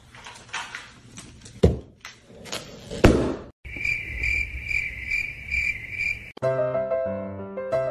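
A dog mouthing an inflated rubber balloon, rubbery squeaks and rubs, then a sharp bang about three seconds in as the balloon pops. An edited-in cricket-chirp sound effect follows, a high chirp pulsing about twice a second, and piano music starts near the end.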